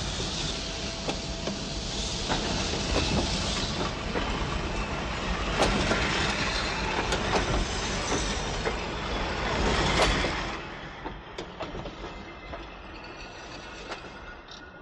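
Passenger train pulling out of the station, its carriages rumbling and clattering over the rail joints, with a few sharp metallic sounds over the noise. The noise drops away about ten and a half seconds in.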